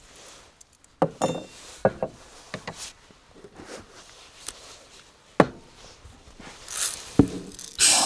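Irregular clinks and knocks of hard objects being handled, like camp cookware or gear, with a short hissing rush near the end.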